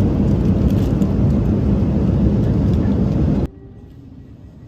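Airliner cabin noise: a loud, steady rumble of engines and rushing air, cutting off abruptly about three and a half seconds in to a much quieter background.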